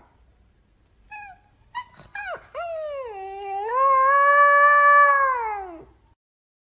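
Husky-type puppy howling: a few short yelps and whimpers about one and two seconds in, then one long howl of about three seconds that holds steady and falls away at the end.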